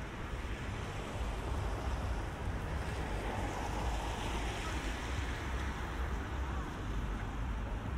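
Rainy city street ambience with a low traffic rumble; a vehicle's tyres hiss on the wet road, swelling about three seconds in and fading a couple of seconds later.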